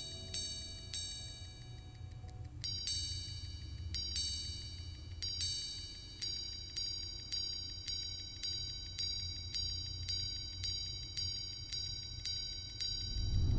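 Greubel Forsey Grande Sonnerie chiming wristwatch striking its gongs: a few spaced and paired strikes, then from about six seconds in a steady run of about a dozen strikes, roughly two a second, each ringing bright and dying away.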